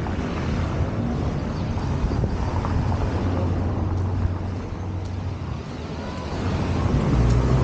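A motor vehicle's engine running close by, a low steady rumble that grows louder near the end.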